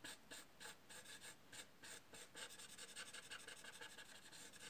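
Paper blending stump rubbing soft pastel into rough-textured paper in short back-and-forth strokes, about four a second: a faint, dry scratching.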